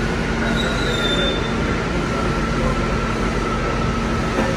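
R68 subway train arriving along the station platform, a steady rumble of wheels and motors with a faint tone that sinks slightly in pitch. A brief high wheel squeal comes about a second in.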